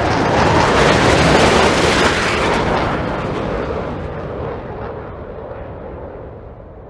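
A long rumbling boom, loudest about a second in, then fading away slowly over several seconds.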